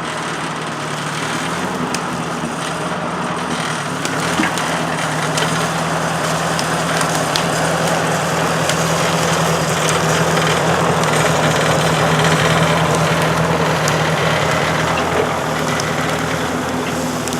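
An engine running steadily at one speed, slowly growing louder to a peak about twelve seconds in and easing off near the end.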